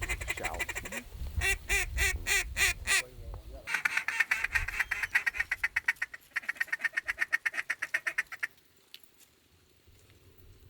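Ducks quacking: several separate quacks, then two runs of fast chattering quacks, each about two seconds long, that stop about eight and a half seconds in.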